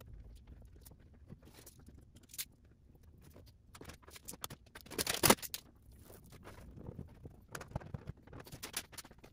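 Vinyl wrap film rustling and rubbing as it is pressed and smoothed by hand onto a golf cart's plastic front cowl, in short irregular bits, with one louder burst of rustling about five seconds in.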